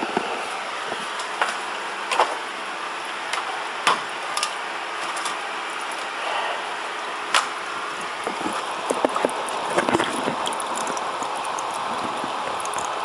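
Steady bubbling hiss of a small saltwater aquarium's running water, with scattered clicks and knocks as the tank's glass lid and the camera are handled over the tank. A cluster of clicks comes about nine to ten seconds in.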